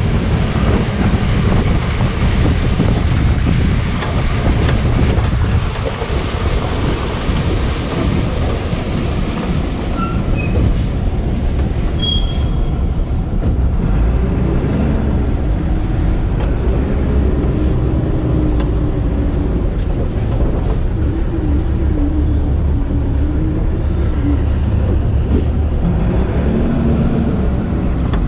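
EZ Pack rear-loader garbage truck driving, heard from its rear riding step: a loud, steady rumble of engine and road noise. A faint whine wavers up and down in pitch during the second half.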